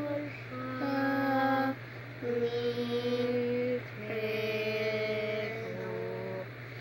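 A girl singing the last, descending notes of a solfège scale (fa, mi, re, do), holding each note about a second and stepping down in pitch four times, over a steady low hum.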